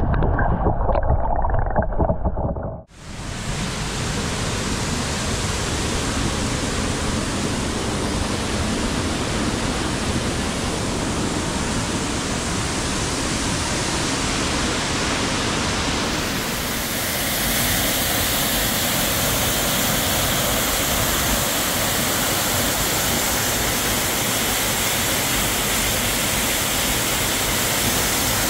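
Waterfall on the Borovniščica stream in Pekel Gorge, a steady even rush of falling water. It comes in suddenly about three seconds in, after a low rumble, and grows brighter and slightly louder about halfway through.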